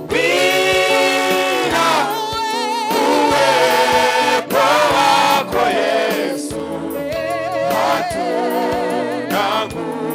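Gospel choir singing through handheld microphones, long held notes with vibrato over a steady low accompaniment.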